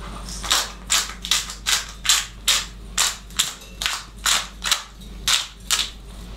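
Hand-twisted pepper mill grinding peppercorns: a dry crunching rasp with each twist, about two a second.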